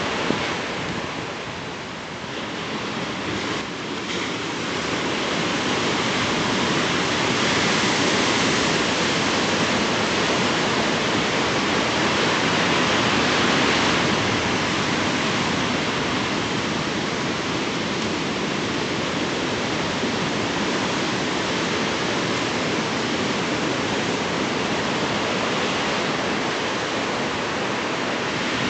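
Ocean surf breaking on a beach: a steady rushing wash of waves that swells a little in the middle.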